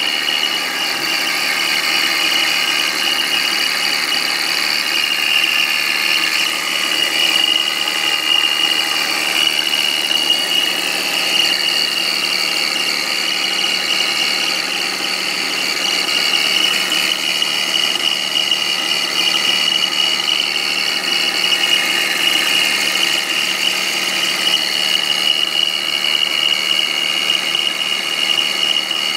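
BMW 520i's M54 straight-six running with a steady, high-pitched whistle over the engine sound. The whistle seems to come from near the fan shroud; the owner has not found its cause despite a new belt, tensioner and idler pulleys, alternator, water pump and fan clutch.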